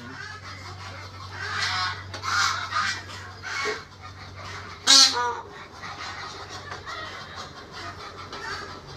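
Peafowl calling: several shorter calls, then one loud, sharp call about five seconds in. Under them runs a low steady hum that stops soon after the loud call.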